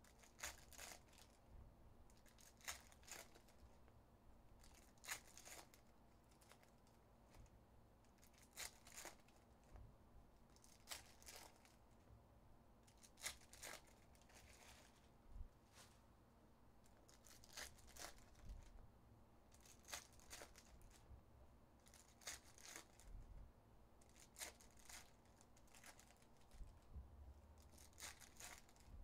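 Faint ripping and crinkling of foil Panini Optic basketball card packs being torn open by hand, in short, irregular rustles every second or two.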